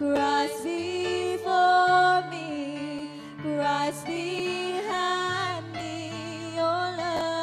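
Two women singing a slow worship song together, with wavering held notes, over keyboard accompaniment with long sustained bass notes.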